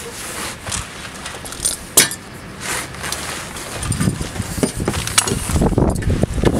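Metal clinks and knocks as a die grinder on its air hose is handled and positioned against the car's underbody, with one sharp click about two seconds in. From about four seconds there is denser low rubbing and knocking. The grinder is not running.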